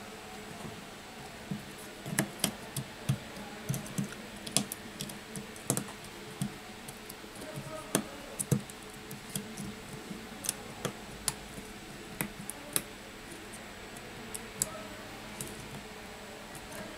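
Irregular light clicks and taps of fingers handling an iPhone 6's battery and metal housing, pressing the battery down into its place, loudest in the first two-thirds.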